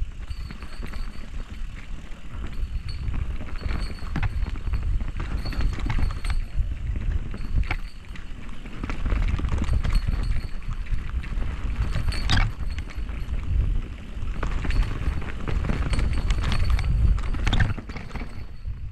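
Mountain bike riding fast down a dirt trail: tyres rolling over dirt and roots, the bike's chain and frame rattling, with sharp knocks over bumps and wind rumbling on the microphone. It gets louder in two rough spells and eases just before the end.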